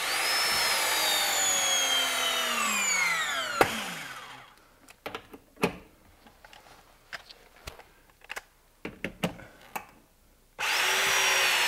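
Ridgid ProPress battery press tool crimping a copper press fitting: the motor whines and drops in pitch as the jaws close under load, ending in a sharp click. Light clicks follow as the tool is shifted, and a second press cycle starts near the end.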